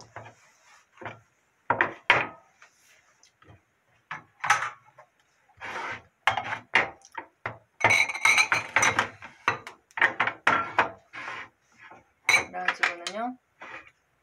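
Glass bowls and a ceramic tray clinking and knocking against each other and on a wooden cutting board as they are moved about: a run of sharp clinks and knocks, with one ringing glass clink about eight seconds in.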